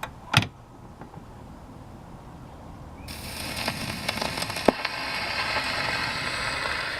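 A single knock about half a second in, then from about three seconds the HMV 102C gramophone's needle running in the lead-in groove of a 78 rpm record: steady surface hiss and crackle with a few sharp clicks, before the music begins.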